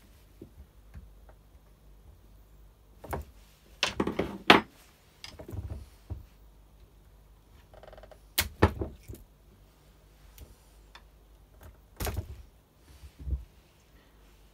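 Hands handling tools and parts of a chainsaw being taken apart: scattered clicks, knocks and short clatters, a cluster about four seconds in the loudest.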